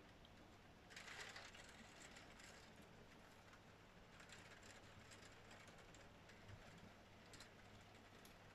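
Faint rain ticking and pattering on a window pane, with a brief louder rush about a second in.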